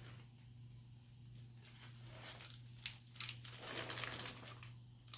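Plastic wrapper crinkling and rustling in spurts, loudest from about two to four and a half seconds in, over a steady low hum.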